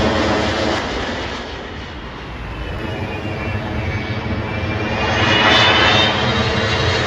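Jet airliners on final approach passing low overhead: steady jet engine noise that dips about two seconds in, then a twin-engine Airbus A330 with its landing gear down comes over, its engine whine building with a high whistle falling in pitch, loudest about five to six seconds in.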